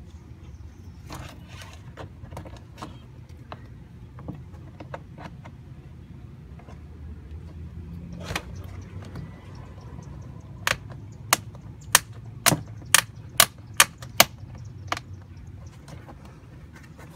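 Hands working a door projector light into its hole in a plastic car door trim panel: scattered light clicks and knocks, then a run of about eight sharp plastic clicks roughly two a second, with one more after a short gap.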